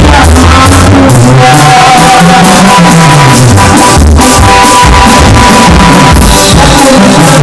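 Live band music played very loud through a PA system, with a steady drum beat, a moving bass line and sustained keyboard notes, the recording pushed to full scale.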